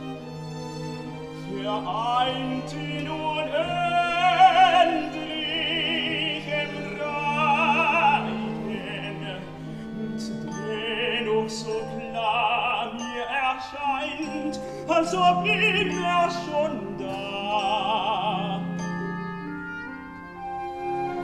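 Operatic tenor singing a German aria with strong vibrato over a symphony orchestra, its phrases separated by short gaps in the voice.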